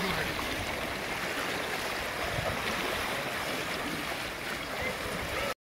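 Shallow seawater splashing and sloshing around the legs of scuba divers wading toward shore, over a light wash of small waves. It cuts off suddenly near the end.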